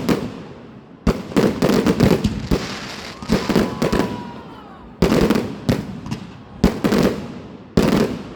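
Fireworks display: aerial shells bursting in quick clusters of sharp bangs, each cluster fading into an echoing rumble. Four clusters, with a faint whistle about three seconds in.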